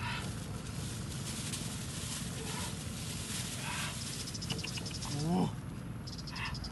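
Brief voice sounds over a steady outdoor background, with one rising call about five seconds in as the loudest moment.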